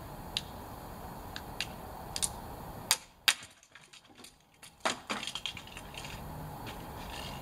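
A 3D-printed PETG gymnastic ring with 5% infill giving a few small clicks under a person's hanging weight, then breaking with two sharp cracks about three seconds in; a few light clatters follow. The thin infill was too weak to hold body weight.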